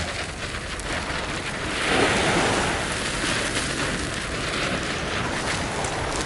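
Surf washing on the beach with wind rumbling on the microphone, the wash swelling louder about two seconds in.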